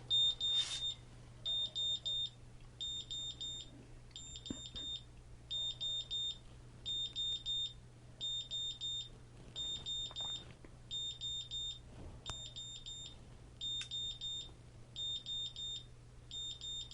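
GZAIR SA-V1000 carbon monoxide detector's buzzer alarm sounding: groups of four quick, high-pitched beeps repeating about every 1.3 seconds. It signals a high carbon monoxide reading, above the detector's alarm point.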